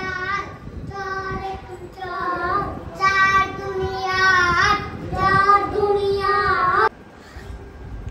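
A child's voice singing a melody in held, gliding notes, cutting off abruptly near the end.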